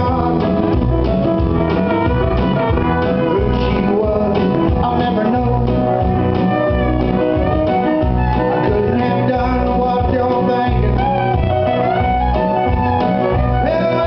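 Live country band playing through a PA: acoustic and electric guitars, banjo and fiddle over a steady, pulsing bass line.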